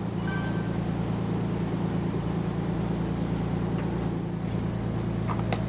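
A fishing boat's engine runs steadily under way, a low even drone under the rush of water from the wake. There is a short squeak just after the start and a couple of sharp clicks near the end.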